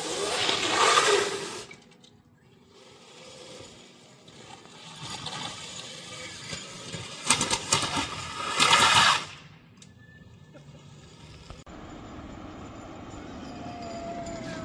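Electric go-kart's tyres hissing through water on wet asphalt as it passes, twice: a loud rush lasting about a second and a half each time, with quieter road noise between.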